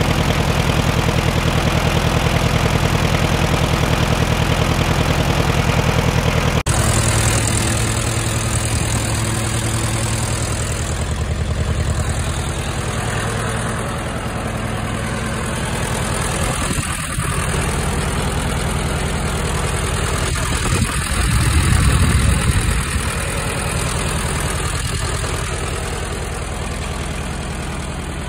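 Case VAC tractor's four-cylinder engine idling steadily, with an even low pulse, swelling briefly about 21 seconds in.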